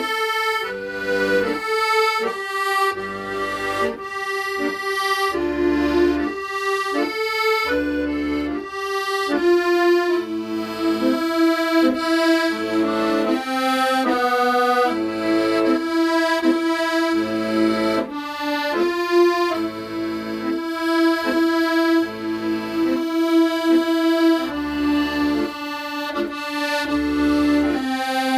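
Accordion playing a melody in held notes over chords, with bass notes sounding underneath at intervals.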